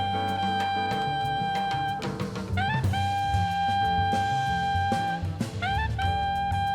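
Jazz music: a saxophone plays long held notes, each entered with a short upward scoop, over bass and drums.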